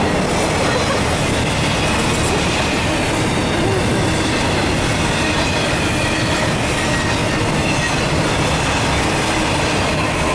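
Intermodal freight train's flatcars loaded with truck trailers rolling past: a steady, loud rumble and clatter of steel wheels on rail, with a faint high wheel squeal.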